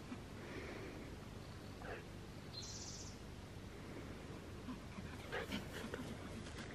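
Steady outdoor background noise with faint scuffling from a puppy playing on grass, and a short high-pitched sound about two and a half seconds in.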